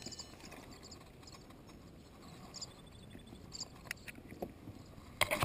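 A fish and fishing gear being handled in a kayak. It is mostly quiet with a few faint clicks, then a quick run of loud clattering clicks and knocks near the end.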